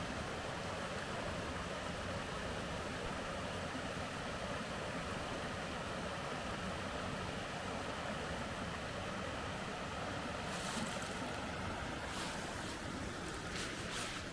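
Steady rushing of a valley stream, with a few short scuffing sounds near the end.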